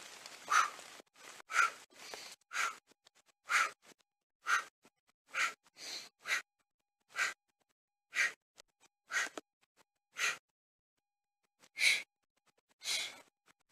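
A man breathing hard from exertion during a bodyweight HIIT workout, giving a short, forceful exhalation about once a second. There is a brief pause in the rhythm near the end.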